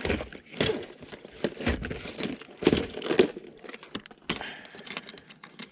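Fishing tackle being handled close to the microphone: irregular crinkles and rustles with sharp clicks, the loudest about three seconds in.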